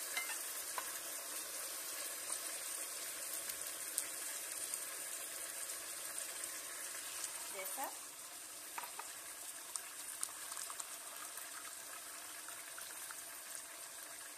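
Hot water poured from a cup into a hot pan of rice fried in butter and oil, sizzling and bubbling as it hits. The sizzle drops about eight seconds in, with a few light clicks throughout.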